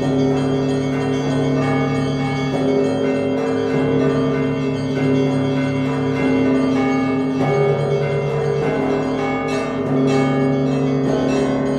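Russian Orthodox church bells rung by hand in a full festal peal: a deep bell strikes about every 1.2 seconds, and smaller bells ring in quick rhythmic strikes over it, their tones overlapping and sustaining.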